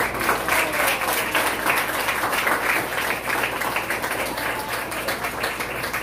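Audience applauding: many hands clapping at once, starting right at the beginning and keeping up steadily.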